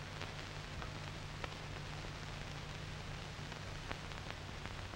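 Surface noise of an old 16mm film soundtrack: a steady hiss over a low hum, with a few faint crackles and pops.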